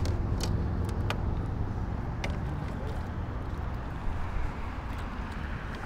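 A steady low rumble with a few faint clicks near the start.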